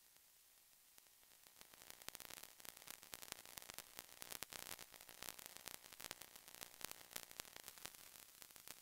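Near silence with faint crackling static: a scatter of soft clicks and hiss that builds up about a second and a half in and keeps going.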